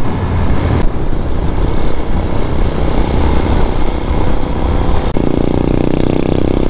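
Vitacci Bashan BSR Raven 250 motorcycle running under heavy wind rumble on the microphone; about five seconds in, a steady engine hum with several pitches comes in.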